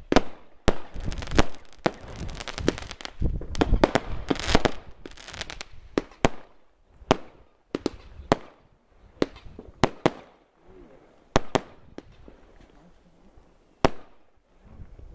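Aerial fireworks going off: a quick run of sharp bangs with crackling over the first five seconds or so, then single bangs a second or more apart.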